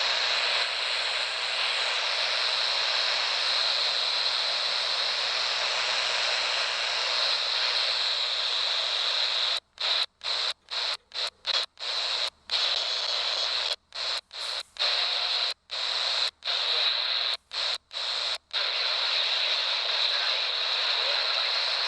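CB radio receiver hissing with open-channel static, with a brighter hiss band high in pitch. Between about ten and eighteen seconds in, the static cuts out and back in about fifteen times in quick succession.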